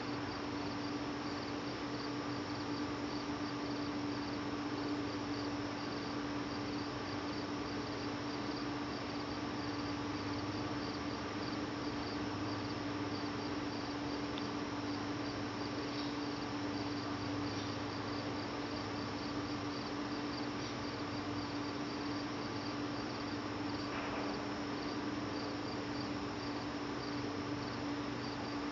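Insects, likely crickets, chirping steadily in an even, rapid pulse rhythm over a steady low hum.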